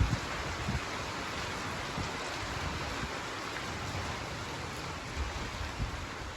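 Steady hiss of heavy monsoon rain falling, with a few low thumps of wind buffeting the microphone near the start and near the end.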